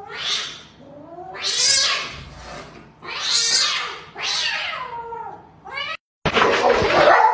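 Cat hissing in four long breaths, about a second apart, with low wavering growls between them. A louder noisy burst follows near the end.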